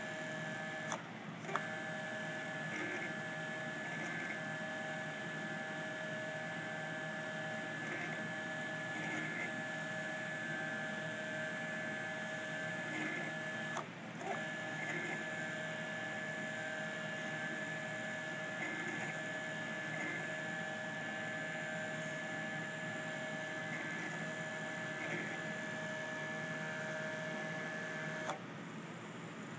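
Stepper motor driving a 4:1 direct-mesh spur gear reduction, running with a steady whine. The whine cuts out briefly three times: about a second in, about halfway through, and near the end. A faint tick repeats roughly once a second.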